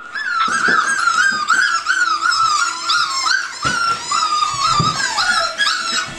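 A litter of Labrador Retriever puppies whining and squealing: many short, high-pitched cries overlapping in quick succession, with a few soft knocks.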